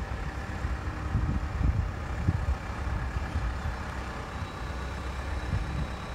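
Vehicle engine running at low revs: a steady low rumble, with a few heavier low thumps in the first couple of seconds.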